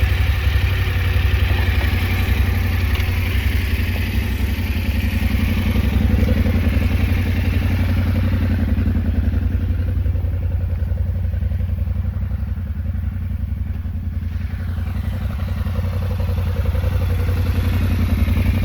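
Yamaha Ténéré 700's parallel-twin engine idling steadily.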